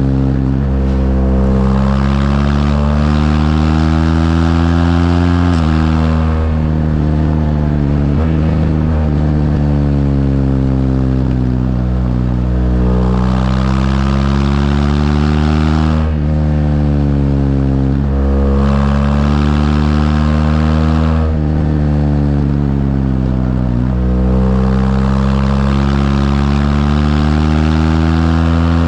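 BMW R1200GS LC's boxer twin engine pulling through the gears on the road. The pitch climbs for a few seconds, then drops sharply at each upshift, several times over, with one stretch where it falls away as the bike slows before it picks up again.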